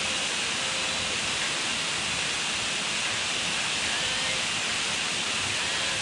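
Tall waterfall pouring down a steep rock face: a steady, even rush of falling water.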